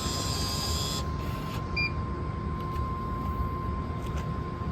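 Vending machine taking inserted money: a brief whirring, rattling sound from the coin mechanism in the first second, then a short faint beep just before two seconds in, over a steady low hum.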